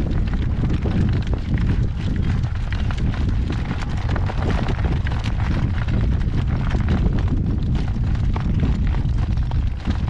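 Strong wind buffeting the microphone with a steady low rumble, over the hoofbeats of a horse moving in harness.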